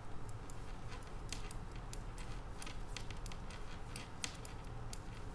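Metal knitting needles clicking lightly and irregularly as stitches are knitted in wool, over a low steady hum.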